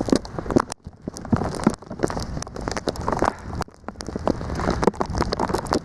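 Blizzard wind and blown snow hitting a handheld microphone outdoors: a rushing noise crowded with irregular crackling clicks.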